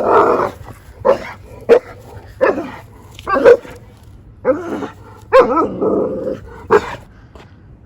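A dog barking repeatedly, about nine loud barks at an uneven pace, with a slightly drawn-out one near the end.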